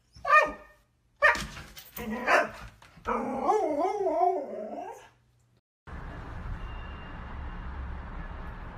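Husky vocalizing: a short yelp, a couple of sharp barks, then a long wavering, warbling howl-like call, the typical husky 'talking' of a dog that does not want its owner to leave. After a brief silence about six seconds in, a steady hiss.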